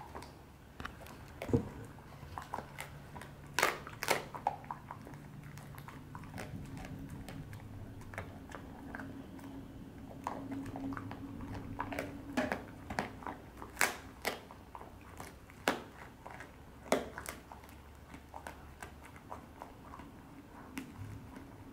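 Border collie chewing a duck-neck bone treat, with irregular sharp crunches as its teeth crack the bone.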